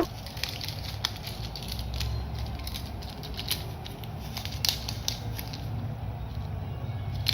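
Scattered light clicks and taps of plastic toys and packaging being handled, over a low steady hum.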